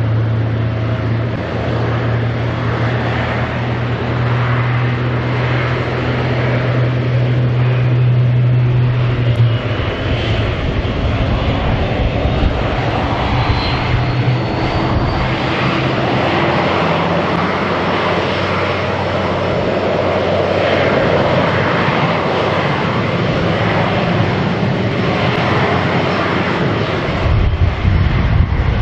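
Airbus A350-900's Rolls-Royce Trent XWB jet engines running at low power during pushback: a continuous rushing roar over a steady low hum that stops about ten seconds in, with a faint rising whine a few seconds later.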